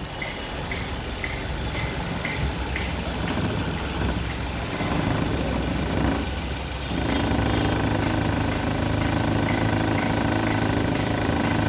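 Maruti Suzuki Ertiga petrol engine running, with an engine-bay noise that the owner puts down to a faulty right-side engine mount. About seven seconds in the engine speed rises and the sound grows louder and fuller.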